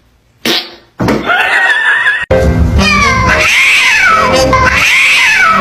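Domestic cats: a short meow about a second in, then a cat yowling in two long wails that rise and fall in pitch.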